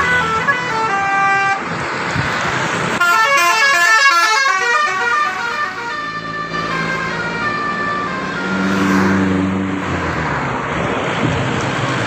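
Tour bus telolet horn playing quick multi-note melodies of stepped tones: a short run at the start, then a longer, louder run from about three seconds in, over the passing bus's engine and traffic noise. A lower held horn-like tone sounds near the end.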